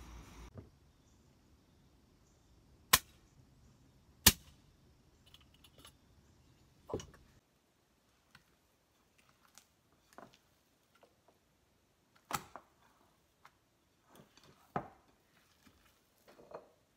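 Scattered sharp clicks and soft taps from hands working a sticky dough in a glass bowl, with two loud ones about three and four seconds in and fainter ones spread through the rest.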